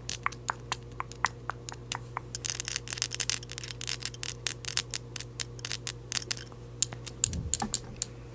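A rapid, irregular run of light clicks and taps over a steady low hum, with one brief low stomach gurgle near the end.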